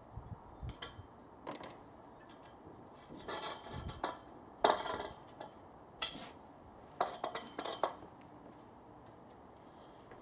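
Metal clinks and clanks as antenna mast fittings and clamps are handled: a string of irregular sharp knocks with a short ring, the loudest about four and a half seconds in, the last near eight seconds.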